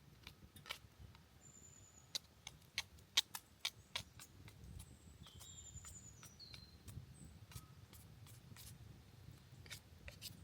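Irregular sharp clicks and snaps, thickest about two to four seconds in, with a few faint high bird chirps, one stepping down in pitch midway.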